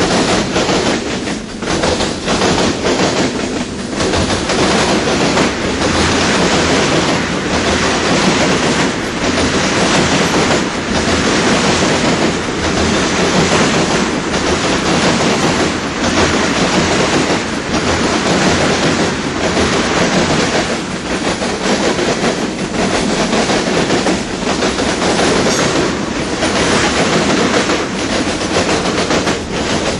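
Long freight train of hopper, tank and box cars rolling past: a loud, steady rumble of steel wheels on rail, with a click that repeats every second or two as the wheels cross rail joints.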